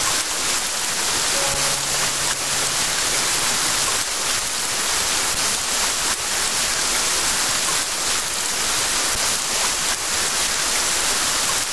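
Rain falling steadily, an even hiss without pause.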